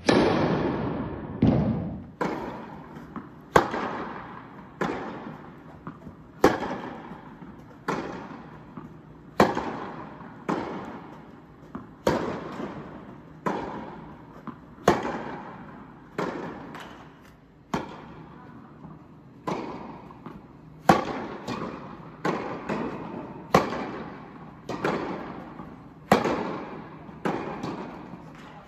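Tennis ball struck by rackets in a rally on an indoor court, one sharp hit about every second or so, each echoing off the hall.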